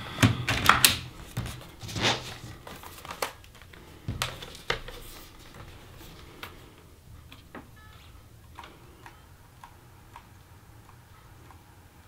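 Handling of a plastic laptop: the battery pushed and clicked into its bay, then knocks and clacks as the laptop is turned over and set down, followed by sparse light clicks of keys being pressed on its keyboard.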